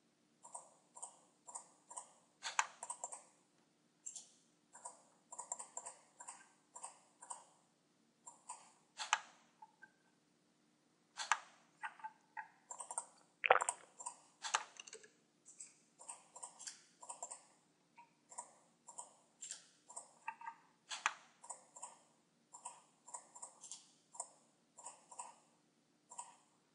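Computer mouse buttons and keyboard keys clicking in quick, irregular runs of a few clicks a second, with one louder knock about halfway through, over a faint steady hum.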